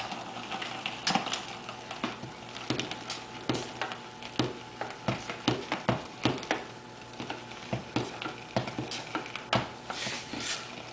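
A stirring utensil clicking and scraping against a saucepan as custard is stirred on the heat on its way to the boil, in irregular knocks about twice a second.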